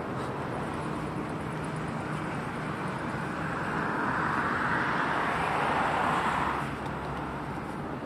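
Road traffic: a vehicle passing, its tyre and engine noise swelling from about three seconds in and fading away near the end, over a steady low hum.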